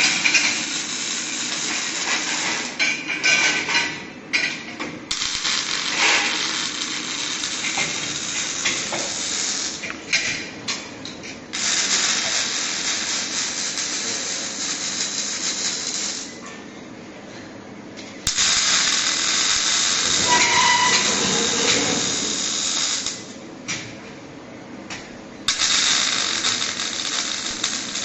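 Robotic arc welding: the welding arc hisses and crackles steadily. It stops twice for about two seconds between welds and then strikes again.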